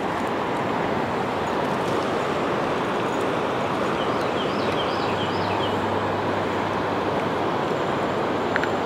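Steady, even rush of flowing river water, with a bird chirping a short repeated phrase about halfway through.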